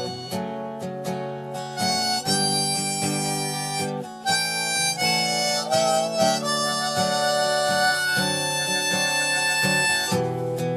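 Harmonica playing a melody of held notes over strummed acoustic guitar, an instrumental break in a song.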